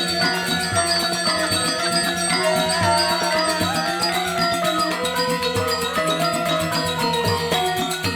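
Balinese gamelan music: metal-keyed mallet instruments playing a fast, dense interlocking pattern over a regular low beat.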